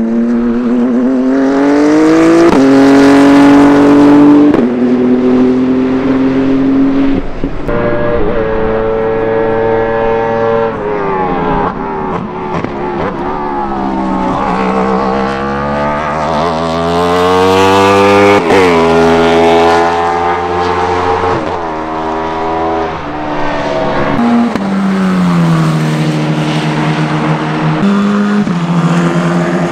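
Racing car engines, several cars in turn, among them a BMW M4 GT3, an open-cockpit prototype and a Tatuus F4 single-seater. Each note climbs with small drops at upshifts, then falls away as the car brakes and downshifts; the first car changes up about two and four seconds in.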